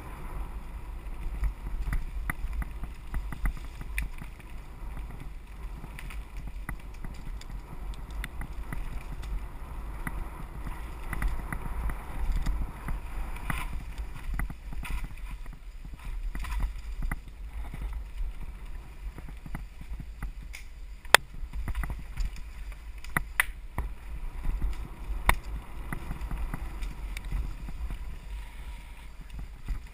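Mountain bike riding down a rough dirt forest trail, heard from a camera on the bike: a steady rumble of wind and ground noise on the microphone with scattered rattles and clicks, and a few sharp knocks past the middle.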